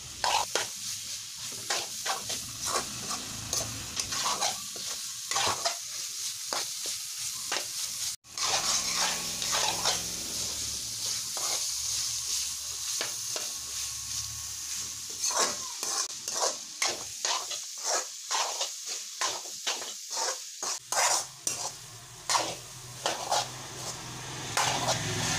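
Beef fry with grated coconut sizzling in a metal pan while a steel spoon stirs and scrapes the pan in quick repeated strokes, keeping the masala from sticking to the bottom. The sound cuts out for an instant about eight seconds in.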